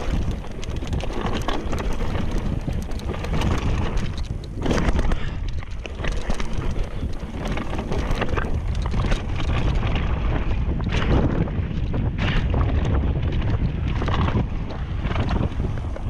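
Wind buffeting a handlebar-mounted GoPro's microphone as a mountain bike rides fast down a dirt singletrack, with the bike knocking and rattling over bumps in the trail.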